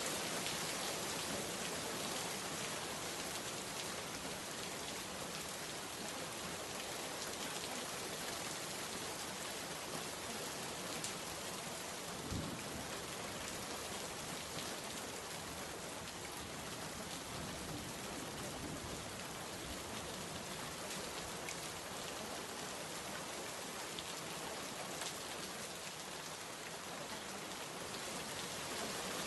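Steady rain falling and pattering on a surface, an even hiss with the odd distinct drop.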